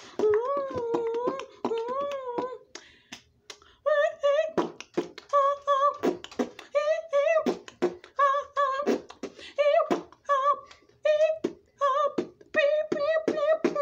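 A child beatboxing: sharp mouth clicks and hits mixed with short, wavering hummed notes. There is a brief pause about three seconds in.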